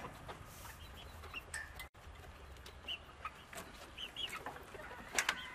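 Chickens calling faintly: scattered short, high peeps and clucks. A couple of sharp clicks come a little before the end.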